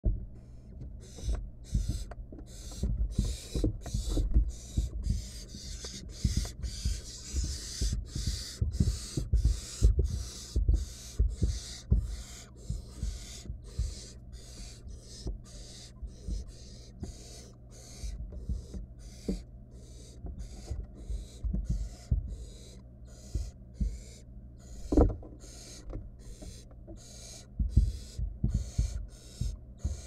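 Barn owl nestlings' food-begging calls: a steady train of short hisses, about two a second. Low knocks and scuffs come from owls shifting on the wooden nest-box floor, the loudest knock about 25 seconds in.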